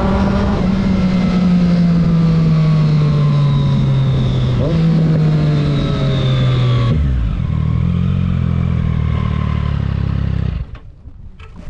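Triumph Street Triple S 660 three-cylinder engine through an SC Project exhaust, slowing on the overrun with falling pitch and a brief rise about five seconds in. It then settles to a steady idle before stopping abruptly about a second before the end.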